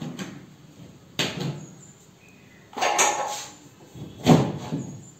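PVC ceiling panels being handled and pushed into place overhead: three separate plastic knocks and rattles, the loudest near the end.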